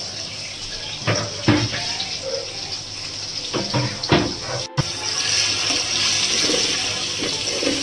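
Oil sizzling steadily in a pan as coconut fries in it, with a few sharp knocks of a spoon against the pan in the first half. After a brief dropout a little past halfway, the sizzle is louder.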